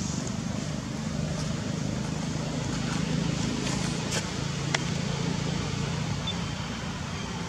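A motor engine running steadily with a low hum that fades out near the end, over outdoor background noise, with two sharp clicks a little after four seconds in.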